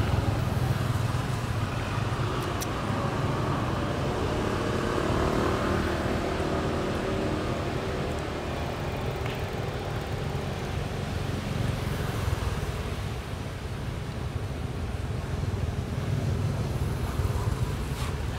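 Steady low rumble of distant vehicle traffic, with an engine tone rising faintly for a few seconds in the middle.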